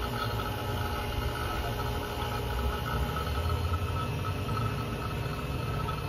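Refrigeration vacuum pump running steadily, with a low hum and a few steady tones, evacuating a new air-conditioning system's refrigerant circuit to a deep vacuum of about 109 microns.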